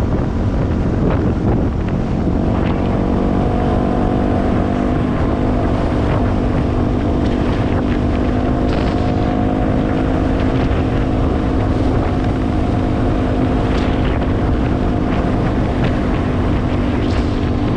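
Yamaha WR250R's single-cylinder engine running at a steady cruising speed, its pitch holding nearly level, with wind rushing over the microphone.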